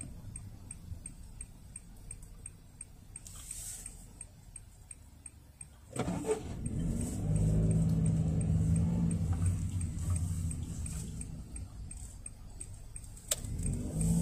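A Honda N-BOX heard from inside its cabin, quiet while stopped at a light. Its small three-cylinder kei-car engine picks up about six seconds in as the car pulls away and accelerates, then drops and rises again near the end.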